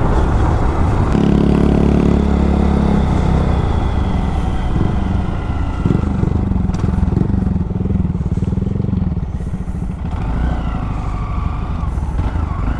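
Motorcycle engine running on the move, its revs rising and falling, under a dense low rush of riding noise.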